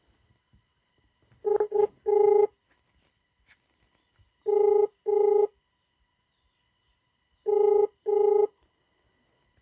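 Mobile phone ringback tone heard over the phone's speaker: a double beep repeating about every three seconds, three times. It is the signal that the outgoing call is ringing at the other end and has not been answered.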